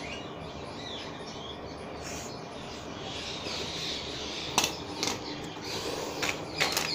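Steady background hiss with faint high chirps, and a few sharp clicks or knocks in the second half, the loudest about two-thirds of the way in.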